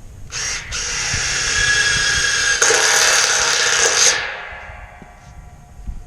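A handheld power tool runs for about four seconds and gets louder partway through. It then winds down slowly as the motor coasts to a stop.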